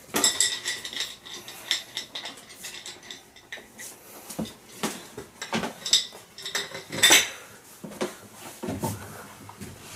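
Metal hand tools clinking and clicking as they are handled during electrical work: irregular sharp clicks, several with a short metallic ring, the loudest about seven seconds in.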